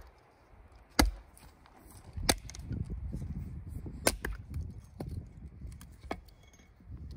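Firewood being split or chopped with an axe: about five sharp strikes, one every second or two.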